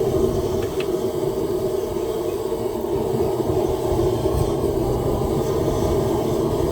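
Forge running with a steady, even rushing noise. A couple of faint light clicks come about a second in.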